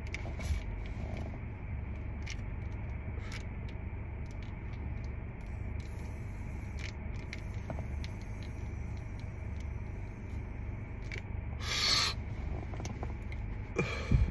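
Steady low rumble inside a car while a man draws on a vape cartridge, with a short breathy rush about twelve seconds in and a few faint clicks.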